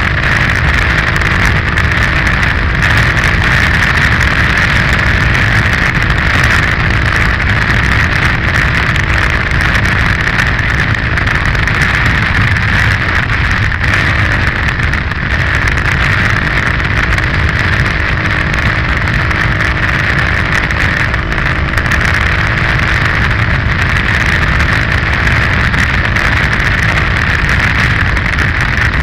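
KTM 530 EXC-R single-cylinder four-stroke enduro motorcycle engine running steadily at cruising speed, with wind noise over the helmet camera's microphone.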